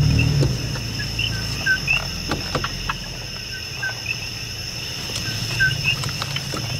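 Night chorus of coquí frogs repeating short two-note chirps over a steady high-pitched insect trill, with a pickup truck's engine running low underneath.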